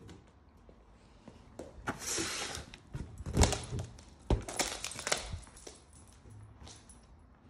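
Scattered knocks, taps and scrapes from a Siberian husky puppy at play on a hardwood floor, with a rustling burst about two seconds in and the sharpest knocks around three and a half and four and a half seconds in.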